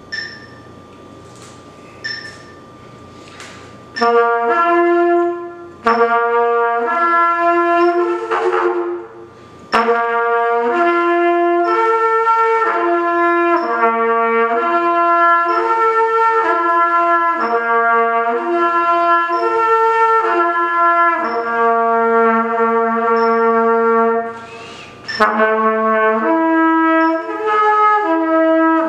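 After a few short breaths, a trumpet plays slurred phrases of held notes that step up and down between pitches, with brief breaks for breath about two, five and twenty seconds into the playing. The player himself hears the slurs into the next partial as not yet smooth, with some air escaping at the embouchure.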